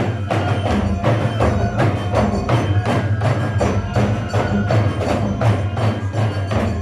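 Japanese festival music: drums and other percussion beaten in a fast, even rhythm.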